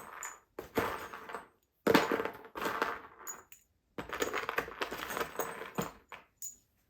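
Small IKEA furniture fittings being handled, clinking and rattling in several bursts of a second or two.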